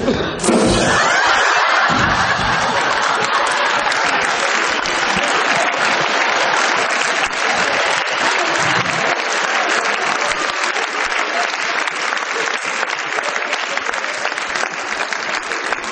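Circus audience applauding and laughing: dense clapping breaks out about half a second in and keeps up, easing slightly near the end.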